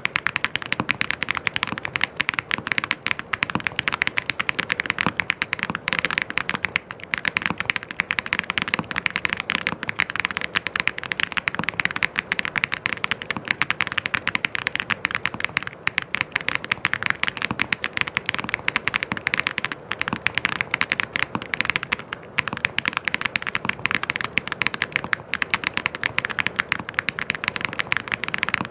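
Fast, continuous typing on a mechanical keyboard: a dense, unbroken stream of key clicks.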